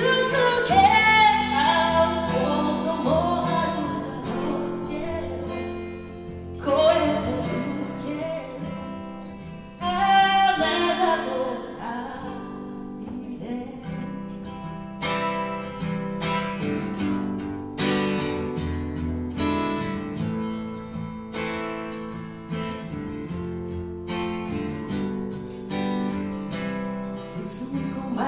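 Live song played on two acoustic guitars with a singer at the microphone. The voice sings a few phrases in the first twelve seconds or so, then the guitars carry on alone with picked notes.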